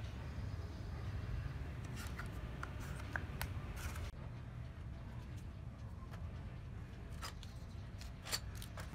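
Scattered light clicks and taps, as of small objects being handled and set down, over a low steady rumble.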